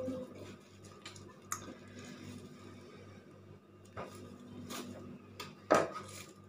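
A knife trimming the edges off a chilled chocolate slab lying on plastic wrap: a few scattered clicks and scrapes, the sharpest a little before the end.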